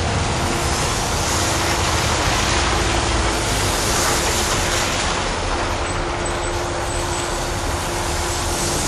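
Steady engine rumble with a constant hum, under a loud even hiss.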